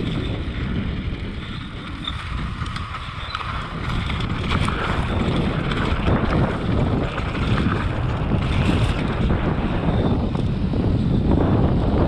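Mountain bike riding fast down a dry dirt trail: wind buffets the camera microphone over the rolling crunch of the tyres on dirt. It dips briefly about two seconds in, then grows louder again as speed picks up.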